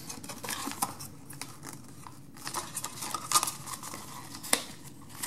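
Paper and thin cardboard being handled: a box flap opened and a folded instruction sheet pulled out and unfolded, with irregular rustles and crinkles and a couple of sharper crackles in the second half.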